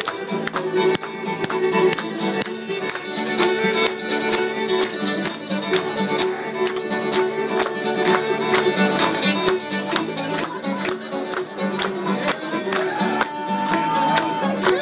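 Live string band playing a hoedown-style fiddle tune: the fiddle leads over strummed acoustic guitar, with a fast, steady strumming beat.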